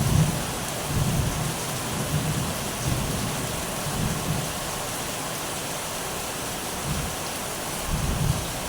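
Steady rain falling, with low rumbles of thunder swelling and fading every second or so.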